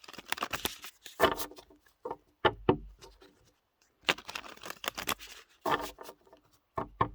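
A deck of oracle cards being shuffled by hand: repeated papery riffling and rustling in bursts, with a few short sharp knocks of the deck being handled.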